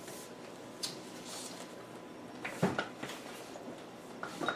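Quiet handling of a hardback book as it is moved and put down on a low shelf. There is one dull knock about two and a half seconds in, and a few light taps near the end.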